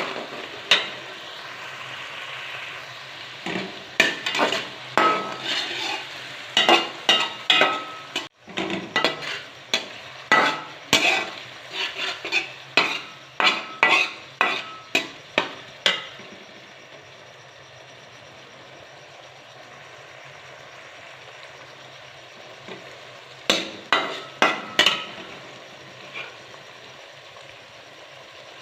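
A spatula scraping and knocking against a cooking pot as food is stirred, about two strokes a second, over a steady sizzle of frying. The stirring stops for several seconds, leaving the sizzle alone, then comes back in a short round of strokes.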